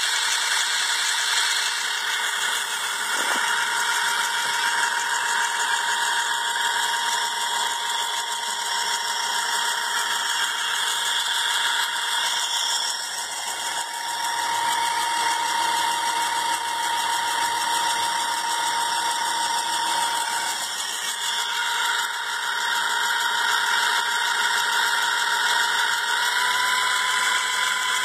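Small electric motor turning a homemade rig of white plastic pulley wheels, running steadily with a whir and a light rattle. A steady whine runs through it and rises slightly in pitch near the end.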